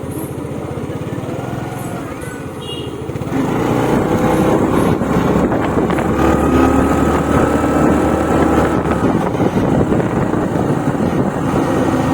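A road vehicle's engine running, growing louder and pulling harder about three seconds in.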